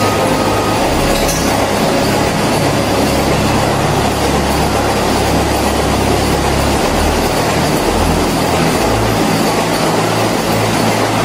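Passenger train running past, a loud steady rumble of its carriages rolling on the rails.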